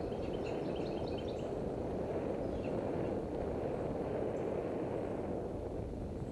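Steady wind rush on the microphone and tyre noise as a bicycle rolls along a paved trail, with a bird chirping rapidly in the first second and a half.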